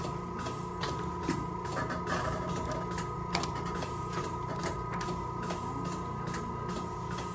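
Steady electronic whine from running equipment: two high pitches held steady over a low hum, with faint regular ticks about three a second.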